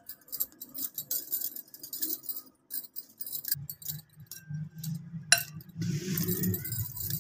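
Dough being kneaded by hand in a glass bowl, with a bangle and ring clinking lightly against the glass in quick, irregular taps. A low rumble joins in about halfway through.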